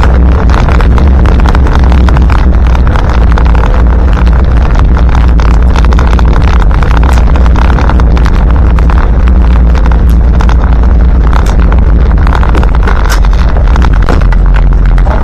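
The 2.25-litre four-cylinder diesel engine of a 1977 Land Rover Santana Series 3 running under load on the move, heard loud inside the cab. Frequent short rattles and knocks sound over the steady engine note.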